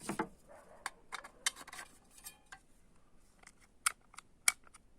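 Old mortise door lock being worked to test a repair: a series of sharp metallic clicks and snaps from the latch and knob mechanism, the loudest two near the end.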